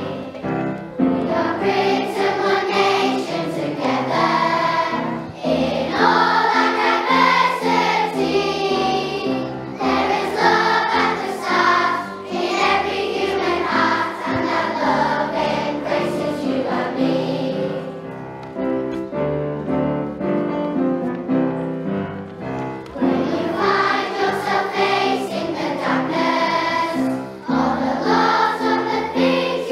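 Music: a choir singing a song with instrumental backing, with a softer passage a little past the middle.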